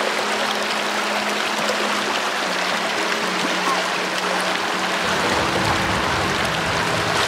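Shallow rocky river rapids rushing steadily over stones, with background music of held low notes playing over it.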